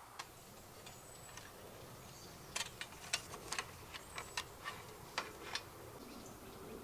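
A run of about a dozen sharp, light clicks and clinks over about three seconds: plates and small utensils being handled and set down on a plastic coolbox lid. Faint, high bird chirps can be heard as well.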